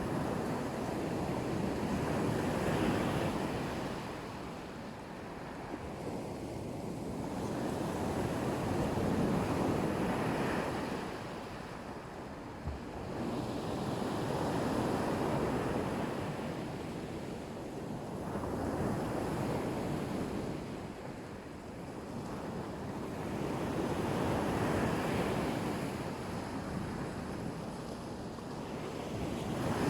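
Black Sea surf washing onto the beach, each wave swelling and fading in turn about every five to six seconds.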